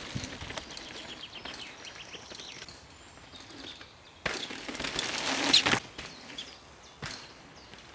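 Mountain bike rolling fast over a dirt trail strewn with dry leaves as it passes close by, a loud rush of tyre and ground noise lasting about a second and a half just past the middle. Before it, faint quick ticking fades out over the first few seconds.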